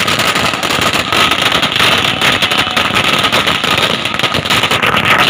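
A string of firecrackers going off on the street in a rapid, continuous run of sharp bangs and crackles.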